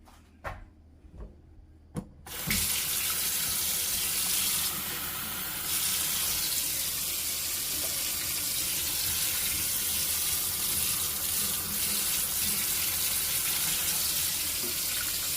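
Water running steadily from a kitchen tap for about thirteen seconds, likely filling a cup of water for the recipe. It starts about two seconds in, after a few light clicks and knocks.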